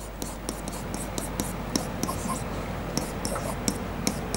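Stylus scratching and tapping on an interactive whiteboard as a word is written: many short strokes in quick, irregular succession, over a low steady mains hum.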